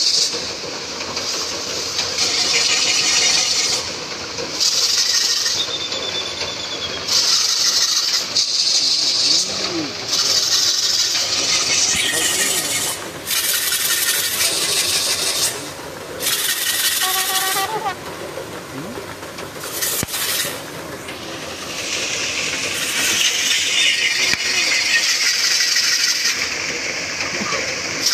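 A crowd of men shouting and calling around yoked bulls running a circuit, with repeated bursts of loud hissing noise every second or two and a short warbling call about two-thirds of the way through.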